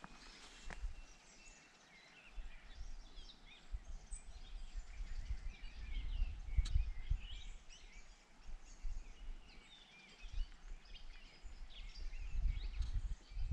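Small songbirds chirping and twittering in the hillside scrub, many short calls scattered throughout, over a low rumble of wind on the microphone that comes and goes in gusts.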